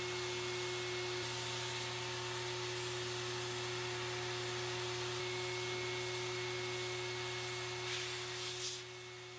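Compressed-air spray gun spraying a coat of clear lacquer onto wood: a steady hiss of air and atomised finish over a steady low hum. There are a couple of short bursts near the end as the trigger is worked, then the spray stops.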